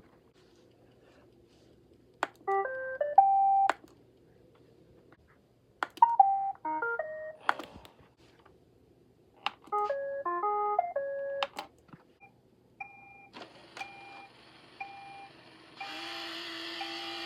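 Roomba robot vacuum playing its electronic beep tunes: three short multi-note melodies a few seconds apart, then a run of single short beeps about once a second over a steady hiss that gets louder near the end.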